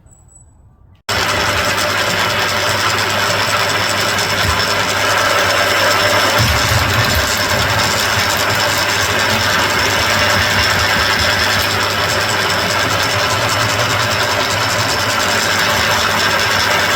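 A mill drill driving a tapping head runs steadily and loudly. The machine noise cuts in abruptly about a second in.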